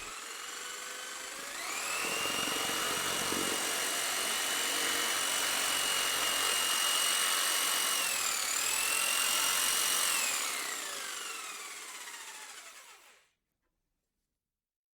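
A small high-speed motor, like a power tool's, spinning up over about two seconds into a steady high whine. It dips briefly in pitch and recovers, then winds down and stops about two seconds before the end.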